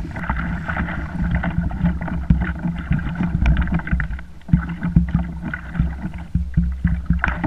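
Choppy sea water sloshing and slapping against a plastic fishing kayak's hull over a steady low rumble, with many small knocks and taps throughout.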